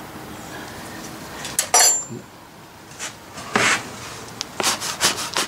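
A small metal hand tool clinks sharply onto a workbench with a short metallic ring a little under two seconds in. Several duller knocks of handling follow in the second half.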